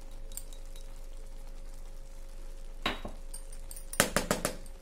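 Light clinks of cookware: one short clink about three seconds in, then a quick run of several sharper clinks about a second later, over a faint steady hum.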